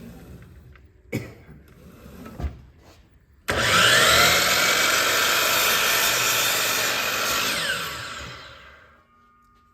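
Electric power saw switched on about three and a half seconds in, running for about four seconds as it crosscuts a pine fence picket, then winding down with a falling whine. A couple of knocks come before it starts.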